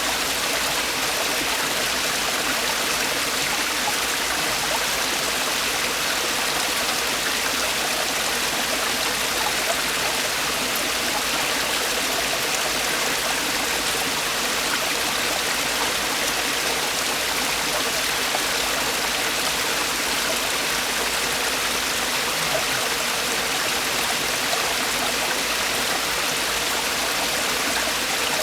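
Mountain stream water falling and splashing over rocks in a valley: a steady, even rush of water.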